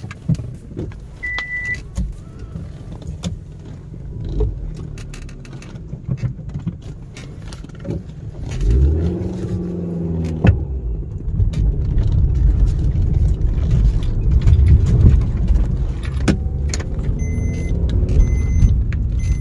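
A car heard from inside: keys jangling and a short beep near the start. About halfway through the engine note comes up, and the car then runs on steadily and louder, with a few short electronic beeps near the end.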